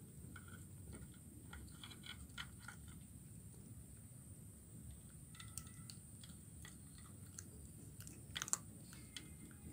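Kitten chewing and crunching fish bones, faint, with scattered small crunchy clicks and a louder burst of crunches near the end.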